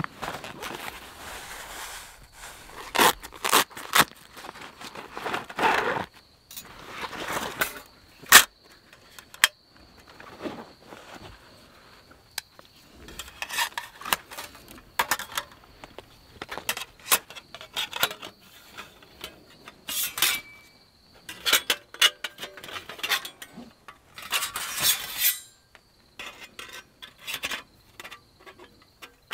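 Thin metal plates of a Fire-Maple folding wood-burning camp stove clinking and scraping as they are handled and fitted together, with a wire grill grate rattling against them. Irregular sharp clinks and scrapes, with a longer rustle near the end.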